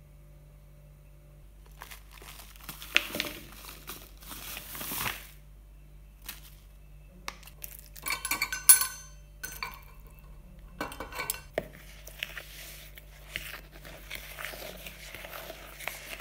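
Metal utensils, a measuring spoon and a fork, clinking and scraping against a mixing bowl as crumbly cookie dough is stirred, in uneven bursts, with a brief ringing clink midway.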